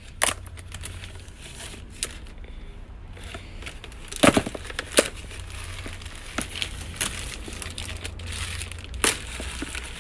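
Packing material crinkling as it is handled while hematite stones are packed, with a few sharp clicks, near the start, twice around the middle and once near the end.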